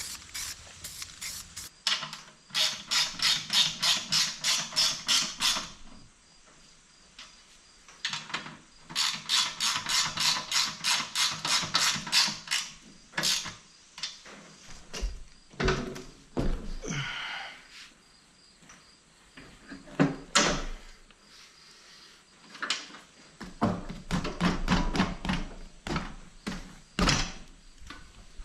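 Socket ratchet clicking in quick runs of about four clicks a second, three spells of it, with a few knocks in between, as bolts are run in to fasten the seat back onto the mower.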